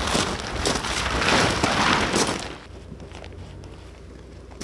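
A large tent's coated fabric rustling and flapping as it is shaken out and spread over the ground. It stops about two and a half seconds in, leaving a few faint ticks and crunches.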